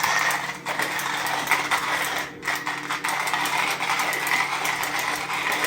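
Coffee machine's built-in grinder running: a steady motor hum with coffee beans rattling and crackling as they are ground.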